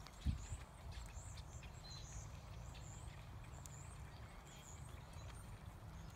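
Horse trotting on soft arena dirt, its hooves making muffled thuds over a steady low rumble, with one louder thump just after the start.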